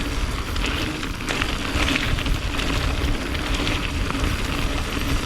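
Mountain bike rolling along a dirt trail, with steady wind rushing over the microphone.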